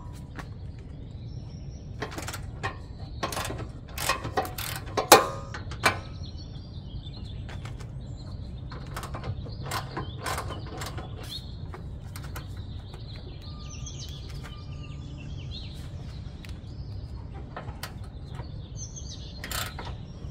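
Socket ratchet clicking, with metal tools knocking, as 14 mm bolts are undone; a run of sharp clicks is loudest around five seconds in, with more near the end. Birds chirp faintly.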